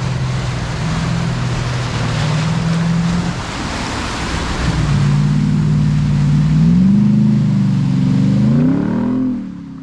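V8 Nissan Patrol wading through a fast-flowing creek crossing: the engine runs under load while water surges and splashes around the wheels. From about halfway through, the engine note rises and wavers as it is revved to climb out up the muddy bank, and the sound fades out near the end.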